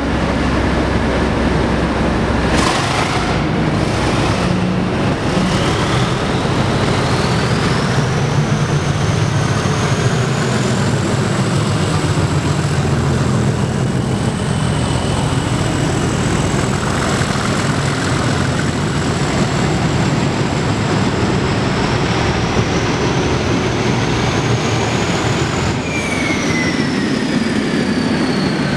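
Two English Electric Class 37 diesel locomotives, each with a turbocharged V12, running hard as the train pulls away, a loud, steady engine noise. A turbocharger whistle rises in pitch over the first several seconds and holds high. Near the end a second whistle falls in pitch as the rear locomotive passes.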